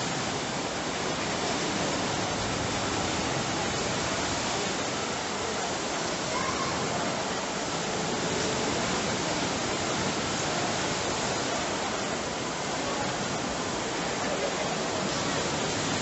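Rain Oculus waterfall: a column of water falling from the ceiling oculus and splashing into a round pool below, a steady, unbroken rush of water.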